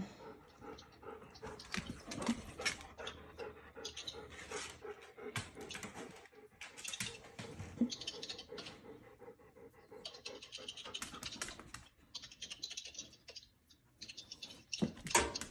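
A small dog close by, breathing noisily in several spells of about a second each, with scattered light clicks and taps and one sharper knock near the end.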